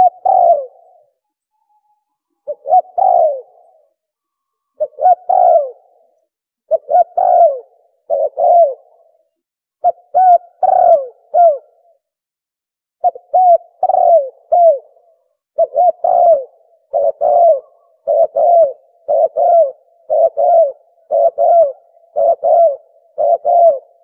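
Spotted dove cooing: phrases of two or three low, throaty coos repeated over and over. They come every couple of seconds at first and about once a second in the second half.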